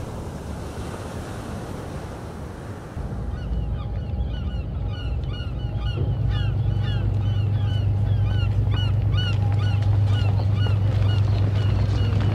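Wind and surf noise, then from about three seconds in a flock of birds calling in many short, overlapping calls, over a steady low hum that grows louder about six seconds in.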